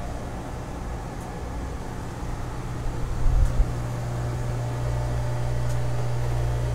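Steady low machinery hum in a yacht's engine room, with a few low thumps about halfway through, after which the hum is louder.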